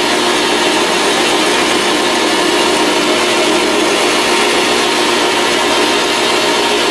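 Grizzly G0602 benchtop metal lathe running steadily, its motor and gearing giving a constant hum with several steady tones, while a cutting tool is fed into the spinning workpiece to take a light cut.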